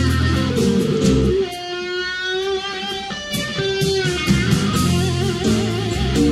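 Live rock band with electric guitar, keyboard and drums playing. About a second and a half in, the bass and drums drop out, leaving a held note with vibrato for a couple of seconds, then the full band comes back in.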